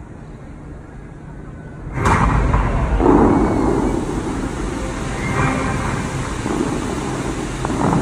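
Dubai Fountain's water jets firing about two seconds in: a sudden loud rush of water that carries on as a steady, dense spray noise with a low rumble.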